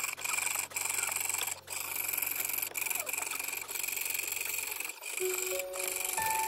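Jeweler's piercing saw cutting through thin brass plate: a steady high rasp from the fine blade, broken by brief dips roughly once a second. Soft music notes come in about five seconds in.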